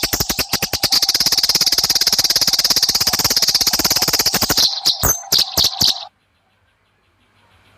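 Eurasian tree sparrows giving a rapid, fast-repeating chatter of sharp chirps, the agitated call of sparrows fighting. The chatter breaks into a few separate chirps about five seconds in and stops about a second later.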